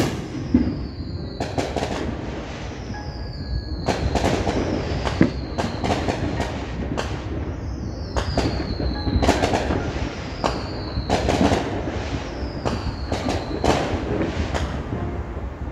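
Fireworks going off in repeated volleys: about five high falling whistles, each followed by a rapid run of sharp cracks and pops, over a steady low rumble.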